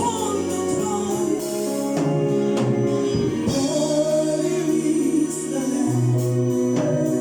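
Gospel choir singing with organ accompaniment, the organ holding long steady chords under the voices.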